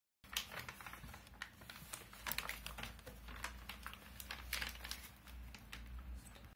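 Crinkling and crackling of a metallised plastic anti-static bag holding a graphics card as it is handled and lifted from its foam packing, in quick irregular crackles.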